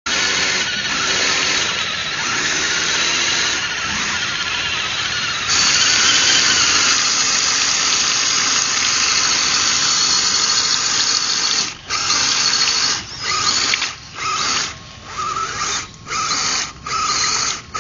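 RC scale crawler's electric motor and geared drivetrain whining at full throttle as the wheels spin in mud, the truck stuck. From about twelve seconds in the throttle is pulsed in short bursts about once a second, the whine stopping and starting.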